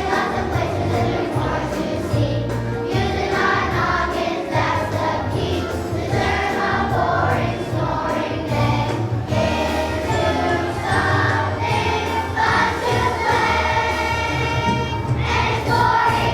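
A choir of young children singing a song over instrumental accompaniment.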